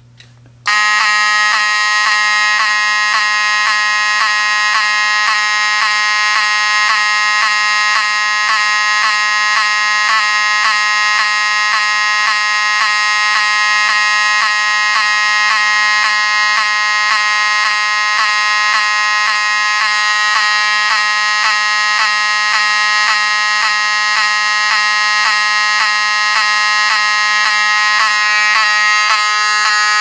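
Spectronics-rebranded Wheelock 7002T-24 two-wire 24-volt electromechanical fire alarm horn sounding a loud, steady buzzing tone from a hammer vibrating the horn plate, starting about a second in. Each strobe flash draws power from the horn and makes it skip a beat.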